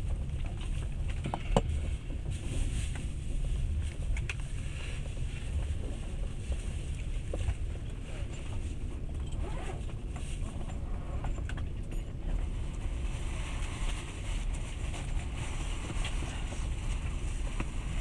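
Passenger train running, heard from inside the carriage: a steady low rumble of the wheels on the track, with a few faint clicks scattered through it.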